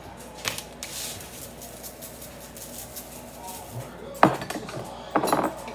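Kitchen utensils and dishes being handled on a counter: a small click, then a loud sharp knock about four seconds in and a brief clattering rattle near the end.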